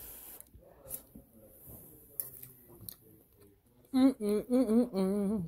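A woman chewing a mouthful quietly, with a few faint clicks. About four seconds in she gives a string of loud 'mmm' hums of enjoyment that rise and fall in pitch.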